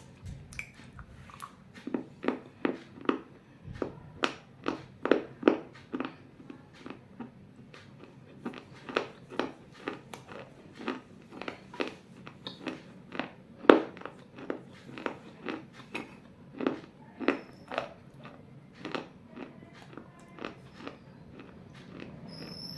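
Pieces of baked clay bowl being bitten and chewed, a steady series of sharp crunches about two to three a second, with one louder crunch about halfway through.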